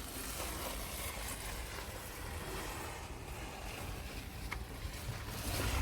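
A taut strip of plastic DPC membrane dragged across the wet surface of a freshly poured concrete slab, a steady faint hiss, over a low wind rumble on the microphone.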